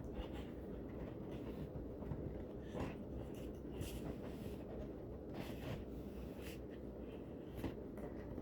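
Faint scraping, rustling and small clicks of cardboard and plastic packaging being handled as a Furby is worked out of its box tray, where it is stuck fast.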